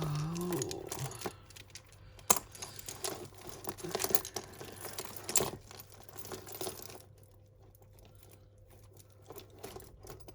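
Costume jewellery being handled while a tangled necklace is worked loose: light clicks and clinks of beads and chain with rustling. The handling dies down after about seven seconds.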